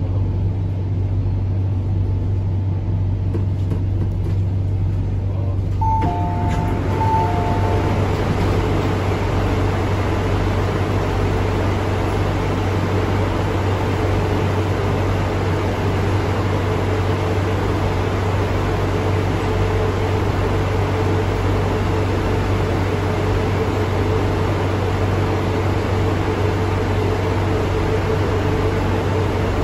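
MTR C-train door chime as the doors open at the station: a two-note chime, high then low, played twice about six seconds in. A steady station-ventilation hiss rises as the doors open and joins the train's steady low hum.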